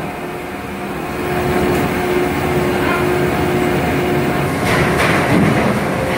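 Steady running drone of a purse seine fishing vessel's machinery, an engine or deck winch, with a few even humming tones over a broad rumble.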